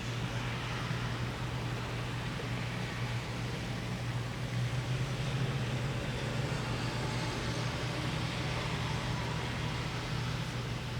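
Heavy thunderstorm rain pouring steadily, an even rushing hiss with a steady low hum underneath.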